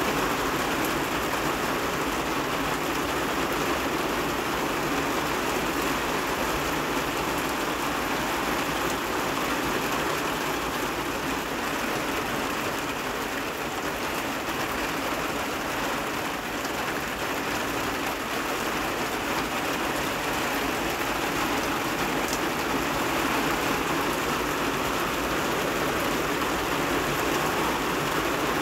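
Heavy rain falling steadily onto a wet flat rooftop and the surrounding trees: an even, unbroken hiss with no lulls.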